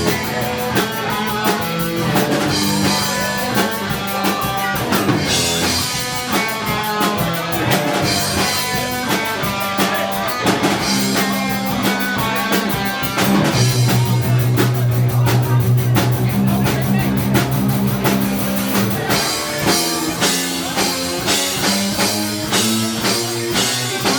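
Rock band playing an instrumental break on electric guitar, bass guitar and drum kit, with a steady drum beat under the guitar and bass. Partway through, a long low note is held for several seconds.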